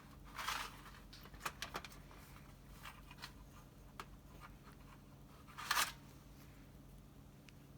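Small clicks and light rustling from hands working on the parts of a disassembled car distributor, with two brief louder scraping rustles, about half a second in and just before six seconds.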